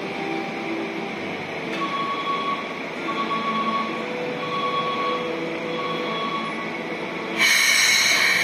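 Keikyu electric commuter train pulling slowly out of a station platform, its running noise steady, with a repeating electronic beep about once a second and a loud high-pitched burst near the end.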